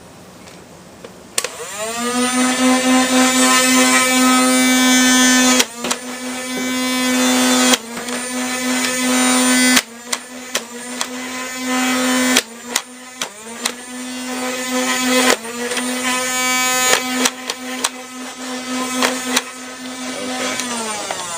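Photon Storm electric flywheel dart blaster: its motors whine up about a second in and hold a steady high whine while darts are fired, with sharp clacks every two or three seconds and smaller clicks between. The whine winds down near the end.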